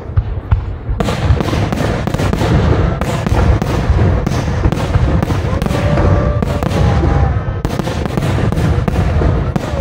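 Fireworks display: low booms of aerial shells, joined about a second in by dense, rapid crackling of many small bursts that keeps on with a few short breaks.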